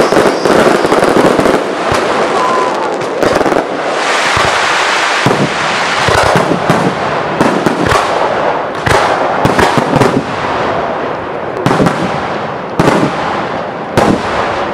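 Professional fireworks display at close range: a dense, continuous din of launches and bursts, punctuated by sharp bangs a second or two apart.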